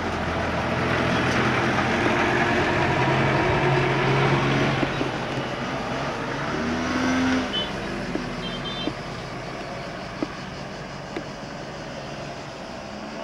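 A small motor scooter's engine revving up as it pulls away and passes close by, rising in pitch, then dropping away as the scooter moves off.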